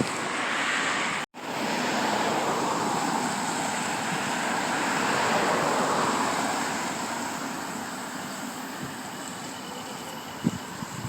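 Sea surf washing on the shore, a steady rushing noise that swells and then slowly fades, with wind on the microphone. It drops out for an instant about a second in.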